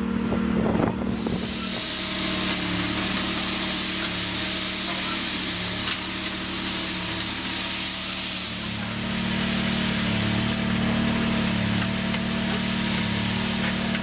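Engine of a concrete curb-forming machine running steadily, with a loud steady hiss over it. The hum grows stronger about nine seconds in.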